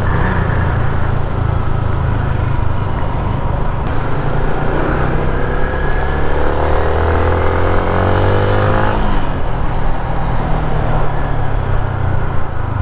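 Motorcycle engine running while riding, with road and wind noise. About four seconds in, an engine note climbs steadily in pitch for several seconds as a vehicle accelerates, then drops away.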